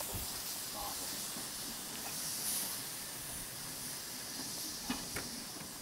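Quarry Hunslet narrow-gauge steam locomotive letting off steam: a steady hiss that surges louder for a moment about halfway through.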